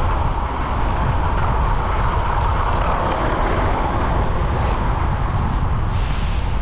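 Steady rush of wind over the microphone with road and traffic noise while riding a bicycle, and a brief rise of hiss near the end.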